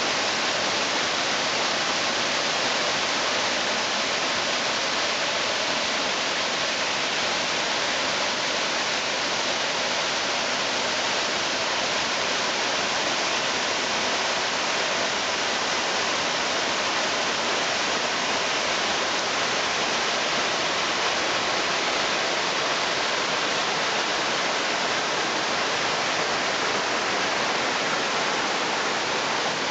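Mountain stream swollen by a typhoon, rushing water in full spate: a steady, loud, even roar with no breaks.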